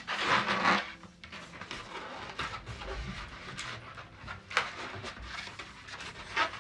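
Large latex balloon being blown up by mouth: noisy rushes of breath and air through the balloon's neck, the loudest in the first second, with further puffs later.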